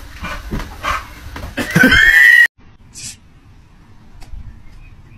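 A dog's loud whining cry with thumps, cut off abruptly about two and a half seconds in.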